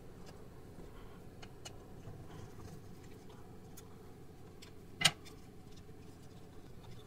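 Faint small clicks and ticks of a screwdriver working the screws that hold a laptop's cooling fan, with one sharper, louder click about five seconds in.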